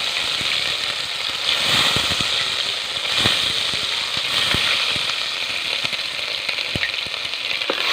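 Garlic and ginger sizzling and frying in hot ghee in a kadai: a steady hiss with scattered sharp crackles and pops.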